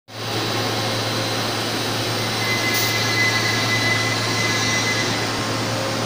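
ABS/HIPS sheet extrusion line running: a steady mechanical hum and whir of motors and blowers, with a faint high whine rising above it for a couple of seconds in the middle.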